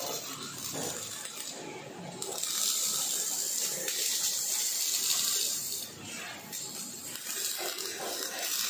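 Robotic MIG arc welding on steel plate: a steady crackling hiss from the welding arcs, easing off briefly twice.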